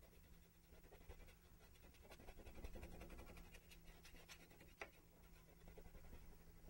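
Very faint scratching and dabbing of a bristle brush on canvas, in short irregular strokes, over a low steady hum.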